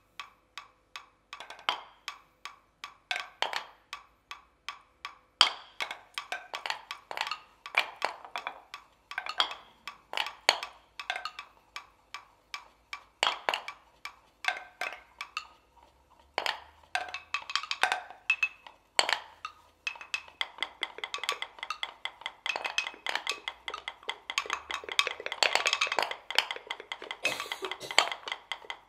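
Wooden morteros played as percussion by an ensemble: sharp wooden clicks and knocks in irregular, overlapping clusters with brief pauses. In the last third they thicken into a dense, almost continuous clatter.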